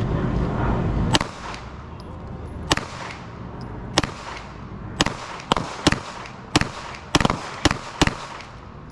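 A 9 mm pistol fired about ten times at a range target, slowly at first and then in quicker shots near the end. A low rumble comes before the first shot, about a second in.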